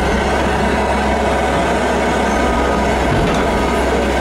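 Tracked excavator's diesel engine running steadily, heard from inside the operator's cab.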